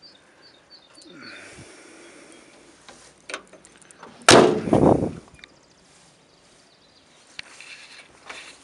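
One loud clunk of the old steel cab door of a GMC 6500 cab-over truck, worked by hand at its chrome handle, about four seconds in and lasting about a second. Faint bird chirps in the first second.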